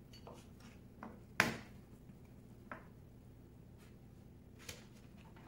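A kitchen knife knocking on a plastic cutting board while soft roasted peppers are cut: four short knocks, the loudest about a second and a half in.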